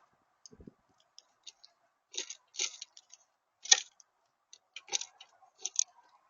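Irregular sharp clicks and taps, about a dozen of them and loudest about halfway through, typical of birds pecking and cracking seed at a bird feeder. A faint steady hum sits underneath.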